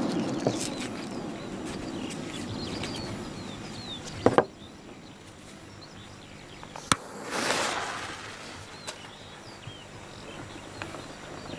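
The rumble of a large firecracker's blast fading away outdoors, then quiet outdoor ambience with small birds chirping. A couple of sharp clicks come about four seconds in, and a brief swell of noise comes about seven seconds in.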